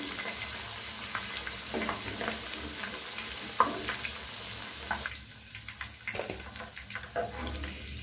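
Chicken pieces frying in hot oil in a nonstick pan, a steady sizzle with crackles, while they are scooped out with a perforated metal skimmer that clicks and scrapes against the pan now and then. The sizzle thins out about five seconds in.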